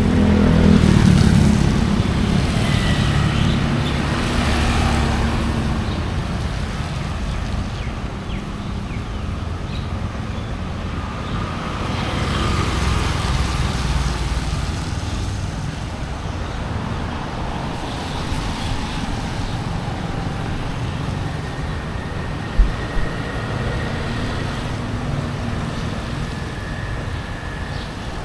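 Busy road traffic: vehicle engines and tyres going by close at hand, swelling and fading as they pass, with one short sharp knock partway through.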